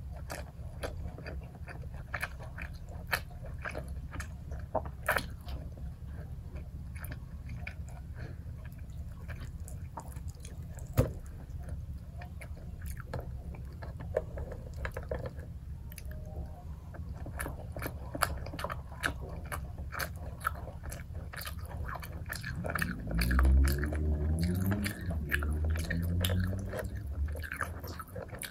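Close-up chewing and biting of chicken and rice eaten by hand, with many short mouth clicks. Near the end a low hummed voice sound rises and falls for a few seconds.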